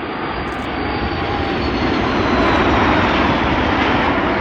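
Aermacchi MB-339 jet trainer's turbojet passing low, a rushing jet noise that swells to its loudest about three seconds in and then eases slightly, with a faint high whine falling in pitch as it goes by.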